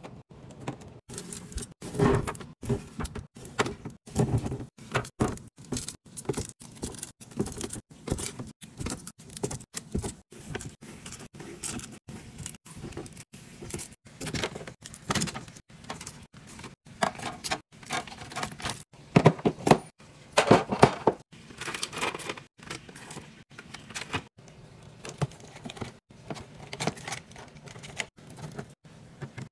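Snack packages and plastic containers set one after another into a refrigerator drawer and clear plastic organizer bins: a quick run of light plastic clacks and knocks, with a few stretches of rustling packaging.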